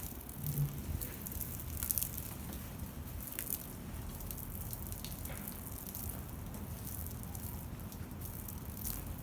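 Water from a shower spraying and splashing, with scattered drips and small splashes over a steady hiss.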